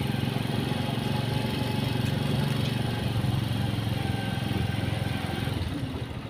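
Small motorcycle engine running steadily at low speed, its sound dropping away near the end.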